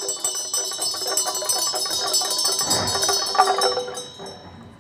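Many small bells shaken rapidly in a continuous jingle, with a bright ringing that dies away about four seconds in.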